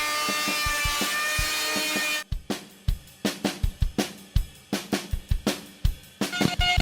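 Rock music with a drum kit. About two seconds in, a steady high tone cuts out and only drum hits remain; fuller music returns near the end.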